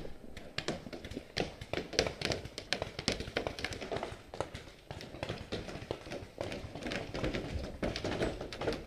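A paintball player's footsteps and gear knocking as he moves, a run of irregular taps and knocks about two or three a second.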